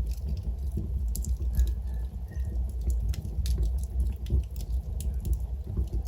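Wood logs burning in a fireplace: a steady low rumble of flames with scattered sharp crackles and pops. A faint, brief whistle comes about a second and a half in.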